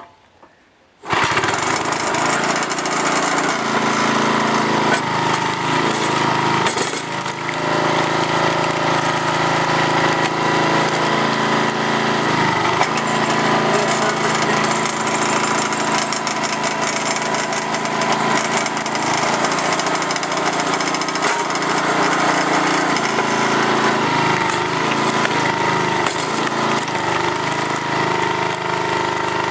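Small gasoline engine of a hydraulic wood splitter, driving its pump, comes in about a second in and runs steadily at a constant speed.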